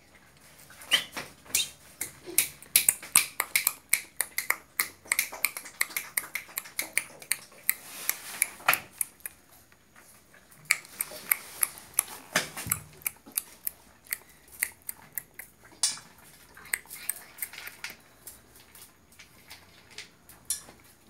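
American Bully puppy tugging and chewing at a jeans leg on a tiled floor: a rapid, irregular run of sharp clicks and scuffs, several a second, thinning out toward the end.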